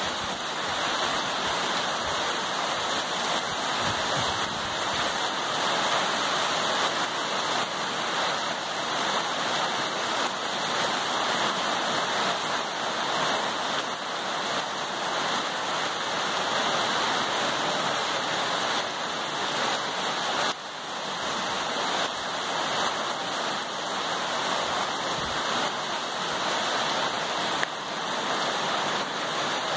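Rain falling steadily on tree foliage, an even, dense hiss with a short drop in loudness about twenty seconds in.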